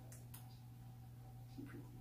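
Near silence: quiet room tone with a steady low hum, two faint clicks in the first half second, and a faint low murmur near the end.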